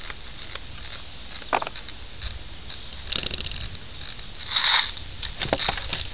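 High-capacity magazine of an airsoft AK being wound by its wheel: a fast run of ratchet clicks a little after halfway, with scattered single clicks and short rasps.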